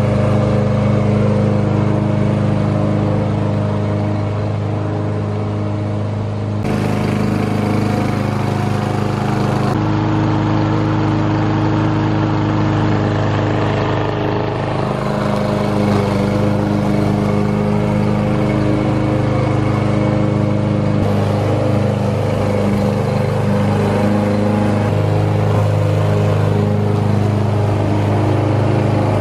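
Craftsman M230 walk-behind mower's 163 cc Briggs & Stratton engine running steadily under load while mowing grass. Its tone changes abruptly a few times, at cuts between recordings.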